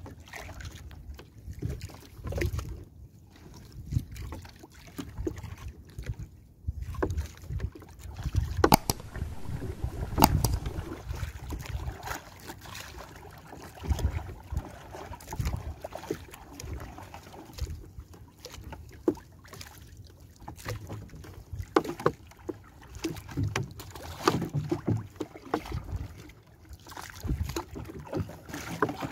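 A wooden paddle working a small wooden outrigger canoe: water splashing and lapping along the hull, with irregular sharp knocks of the paddle against the boat.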